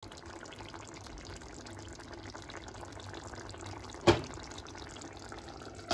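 Faint, steady bubbling of curry simmering in a pan, with one sharp knock about four seconds in.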